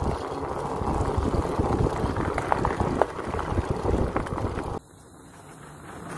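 Wind buffeting a bike-mounted camera's microphone over the rumble and rattle of a mountain bike rolling fast on a dirt and gravel trail, with scattered clicks. A little under five seconds in it cuts off suddenly to a much quieter, steady hiss.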